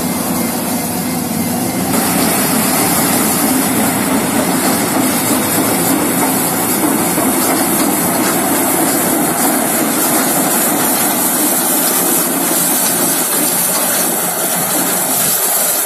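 Tractor-drawn sugarcane harvester working through standing cane: its engine and cutting and elevator machinery run steadily as one loud, continuous noise over a low hum. The noise grows brighter about two seconds in.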